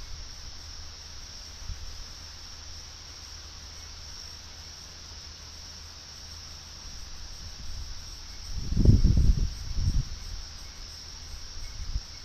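Night chorus of crickets, a steady high-pitched drone. About two-thirds of the way through, a burst of low rumbling rises over it for a second or two.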